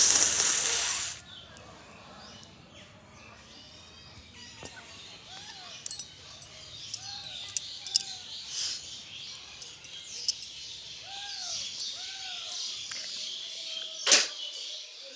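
A forceful nose blow at the start, a hissing rush of breath lasting about a second and a half. After it come faint repeated bird chirps, a few sharp clicks and one louder click near the end.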